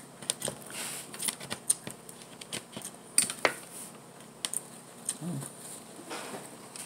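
Close-up chewing of syrupy French toast sticks: wet mouth clicks and lip smacks at an uneven pace, a few of them sharp and loud.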